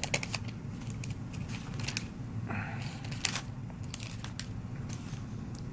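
Pages of a Bible being turned and handled: a string of short paper rustles and crinkles, with a longer rustle a little before halfway, over a steady low room hum.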